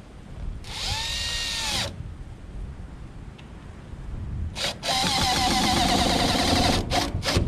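Cordless drill driving screws into wood: one run of about a second that winds up and back down, then after a pause a longer run of about two seconds, finished with two short trigger bursts near the end.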